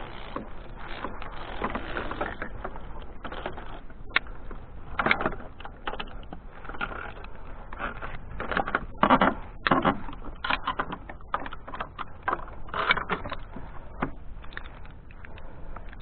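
Irregular metallic clicks, clacks and rubbing of carabiners and a zip-line trolley being handled and clipped onto a steel safety cable close to the microphone, with the loudest run of knocks about nine seconds in.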